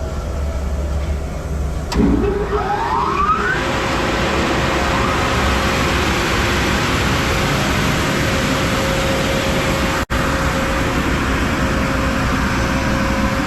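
Two-head wide belt sander starting up: a low hum, then about two seconds in the motors come on with a rising whine as they spin up, settling into a loud, steady whirr of the running belts with a steady hum in it.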